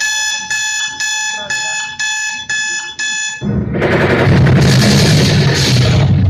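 Dance music playback: an electronic alarm-like beep repeating about twice a second, then loud music with drums comes in about three and a half seconds in.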